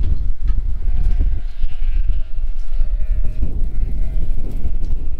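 Sheep bleating, a few long calls running into one another through the middle of the stretch. Wind buffets the microphone as a loud low rumble throughout.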